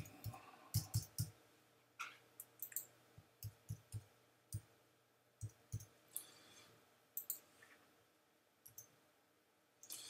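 Computer keyboard keys clicking quietly in short, irregular runs of keystrokes with pauses between, as text is typed into form fields.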